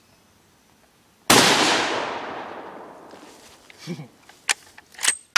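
A single shot from a .300-calibre scoped bolt-action rifle about a second in: a sharp crack with a long echo dying away over about two seconds. Then a brief voice sound and a few sharp metallic clicks as the bolt is worked.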